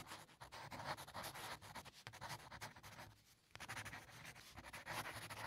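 Faint chalk-on-blackboard writing sound: a run of quick scratches and taps, pausing briefly about three seconds in.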